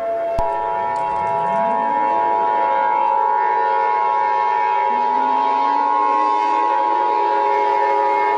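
Emergency Alert System attention signal: a steady two-tone alarm that starts with a click about half a second in. Several low rising wails, like sirens winding up, sweep upward beneath it.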